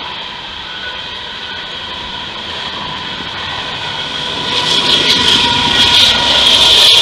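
Long Union Pacific freight train of covered hopper cars rolling past with steady wheel and rail noise. About four and a half seconds in it grows much louder as the mid-train diesel locomotives draw near, their engines and cooling fans running.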